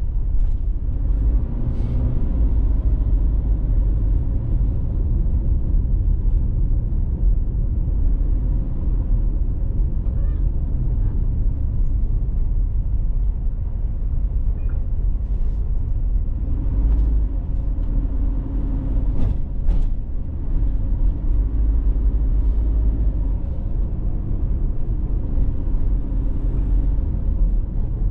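A car being driven: its steady low rumble of road and engine noise, picked up by an in-car camera.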